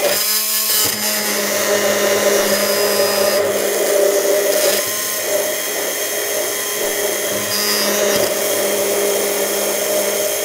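Immersion blender (stick blender) running steadily in a tall beaker with a constant motor hum. It is blending egg and asparagus water while hot melted butter is poured in, emulsifying a quick hollandaise.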